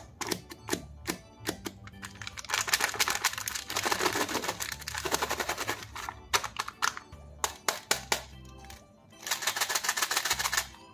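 Foil-plastic candy wrapper crinkling and crackling as it is handled: runs of sharp clicks broken by longer stretches of dense rustling, over background music.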